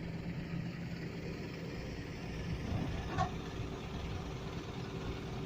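A truck engine running steadily, powering a Palfinger truck-mounted crane during a lift, with a steady low hum and a faint constant whine.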